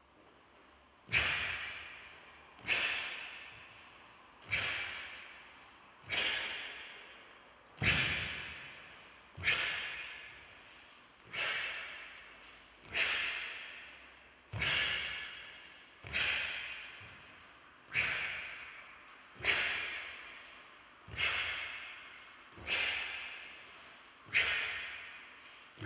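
Taekwondo uniform snapping sharply with each move of the pattern Chon-Ji, one crack about every second and a half, sixteen in all, each echoing away in a large hall.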